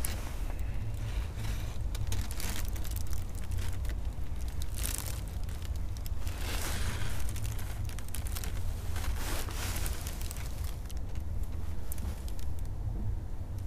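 Wind buffeting the microphone as a steady low rumble, with scattered rustling and clicks, the loudest about five and seven seconds in.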